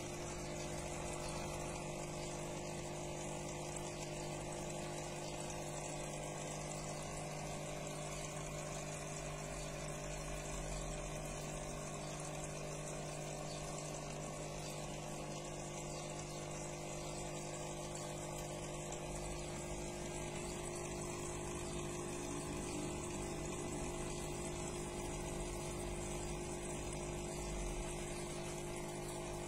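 Aquarium pump humming steadily, with a hiss of moving water.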